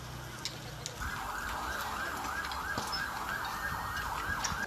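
Emergency vehicle siren in a fast yelp, sweeping up and down about three times a second, starting about a second in.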